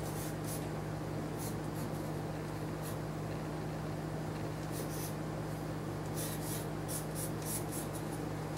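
Pencil sketching on paper: short, separate scratchy strokes, scattered at first and coming close together in the last two seconds or so, over a steady low hum.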